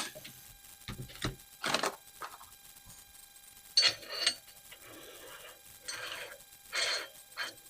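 Small metal AR-15 parts being handled and fitted by hand: a few light clicks and knocks, then short scraping and rubbing sounds of metal on metal.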